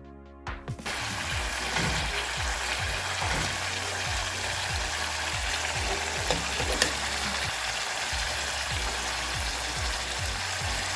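Sausages frying in shallow oil in a pan, a steady sizzling hiss that starts about a second in.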